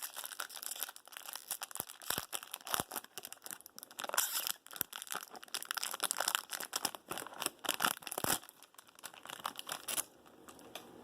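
Packaging being torn open and crinkled by hand: a dense run of irregular crackles and rustles, dying down near the end.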